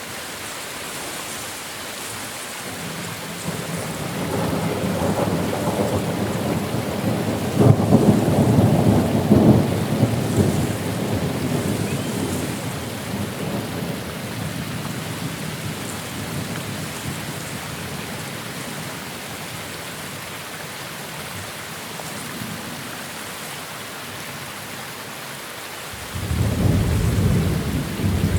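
Steady rain with a long roll of thunder that builds a few seconds in, cracks loudest about eight seconds in and rumbles away over the next ten seconds or so. A second peal of thunder starts suddenly near the end.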